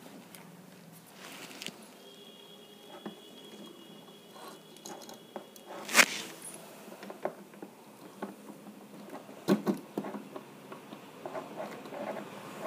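Faint, scattered small clicks, taps and rustles in a quiet room, with a sharp click about six seconds in and another about three seconds later. A faint, steady high tone runs for a few seconds near the start.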